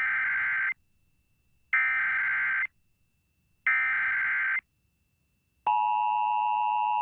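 Emergency Alert System SAME header: three short bursts of warbling digital data tones, each just under a second long and about a second apart. Near the end the steady two-tone EAS attention signal begins. This is the start of a broadcast Law Enforcement Warning.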